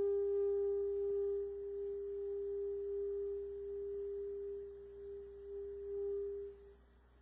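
Solo alto saxophone holding one long, soft, nearly pure note that swells slightly and then stops near the end.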